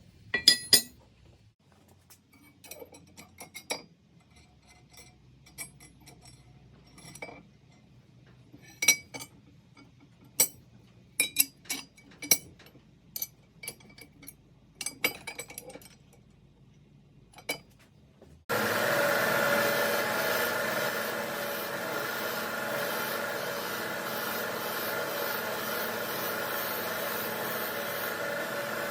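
Metal tool parts clinking and clicking as they are handled, in irregular separate knocks. About 18 seconds in, an electric power tool starts abruptly and runs steadily with a constant whine, working on the metal.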